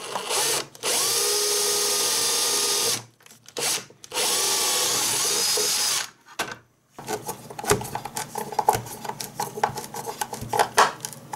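Cordless drill with a twist bit drilling screw holes: a short run, then two steady runs of about two seconds each with a steady motor whine, a brief burst between them. After it stops, a string of light clicks and knocks.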